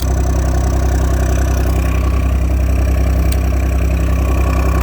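The 20DS mini excavator's diesel engine, just started, idles steadily and loudly.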